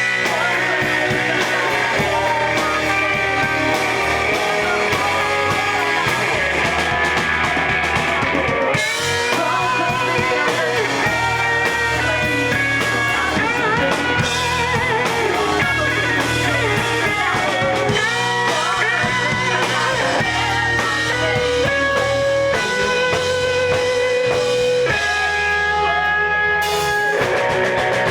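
Live rock band playing: guitars over bass notes and a drum kit, a steady full-band sound.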